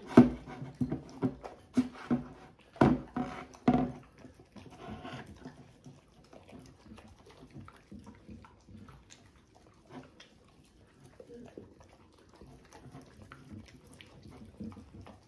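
Two dogs eating wet food from ceramic bowls: lapping, chewing and licking, with sharp clinks and knocks against the bowls, loudest in the first four seconds and softer and busier after.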